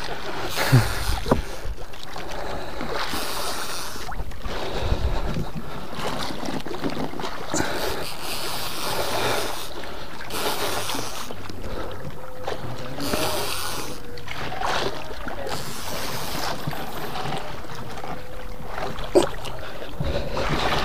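Wind buffeting the microphone and sea water around a small boat, with the angler's heavy, uneven breathing swelling and fading every second or two as he cranks a conventional reel against a big fish. A few sharp knocks stand out, near the start and near the end.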